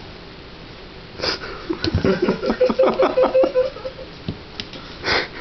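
A dog sniffing close to the microphone: a breath about a second in, then a fast run of quick sniffs for about two seconds, and one more sharp sniff near the end.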